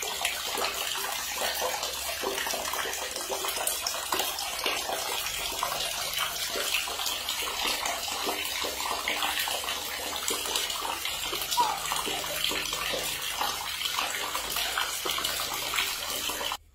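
Water splashing and running in a bathtub: a steady wash of water noise that cuts off abruptly at the very end.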